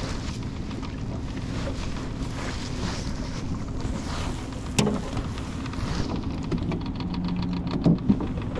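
A motor on a fishing boat humming steadily under wind and water noise. There is a sharp click about five seconds in and two knocks near the end.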